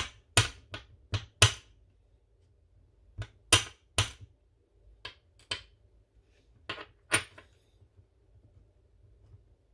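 Small metal parts of a disassembled pin-tumbler lock clicking and tapping against a hard surface: about a dozen sharp taps, mostly in pairs, with short pauses between them.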